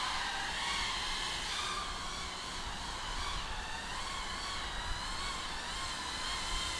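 High-pitched whine of a micro FPV quadcopter's iFlight 1103 8000kv brushless motors and props in flight, several pitches wavering up and down together with throttle. It is flying on a nearly spent battery as it is brought in to land.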